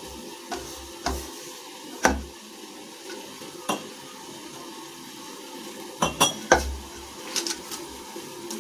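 Hands kneading soft flour dough in a stainless-steel plate, with scattered knocks and taps against the metal and a closer run of them about six seconds in.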